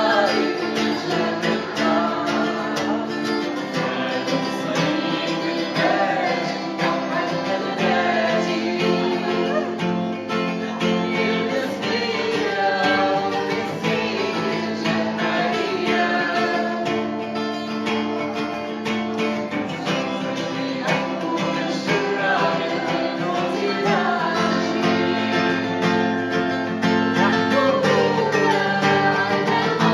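Music: a woman singing a wavering, ornamented melody over guitar accompaniment.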